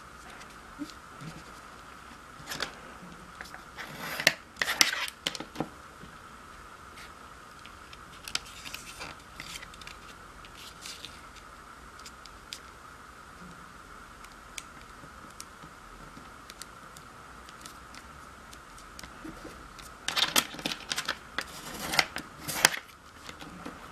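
Sheet of origami paper being folded and creased by hand: short, brisk scraping and rustling bursts as folds are pressed flat, the last ones from a ruler edge run along a crease. A faint steady high hum sits underneath.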